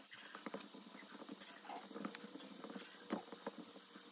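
Faint, scattered small clicks and taps of a hex driver and screws working on a CNC aluminium beadlock wheel, with one somewhat louder click about three seconds in.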